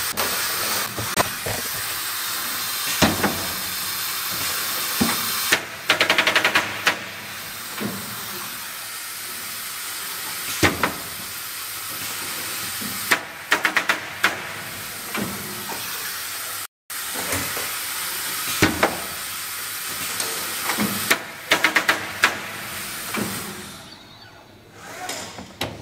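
fastFrame canvas-stretching machine at work: a steady high air hiss, broken every few seconds by knocks and short rapid runs of clicks as its mechanisms move, the hiss dropping away near the end.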